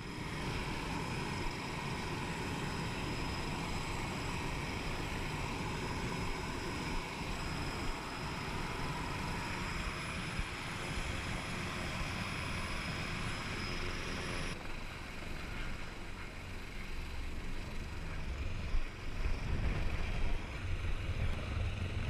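Helicopter hovering: steady turbine whine and rotor noise, first heard close to the open cabin door, then, after an abrupt change about two-thirds through, from beneath the helicopter with rotor downwash buffeting the microphone.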